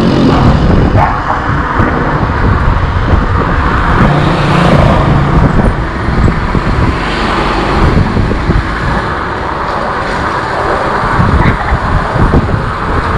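Steady, loud rumble of riding: wind and road noise on an e-bike-mounted camera's microphone, mixed with the sound of street traffic.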